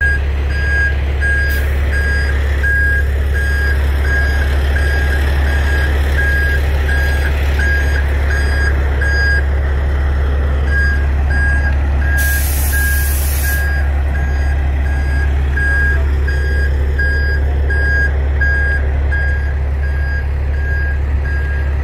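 A heavy truck's backup alarm beeping steadily, about one and a half beeps a second, over the loud steady drone of an idling diesel truck engine; the beeping stops for about a second before the middle. A burst of compressed-air hiss comes a little past halfway.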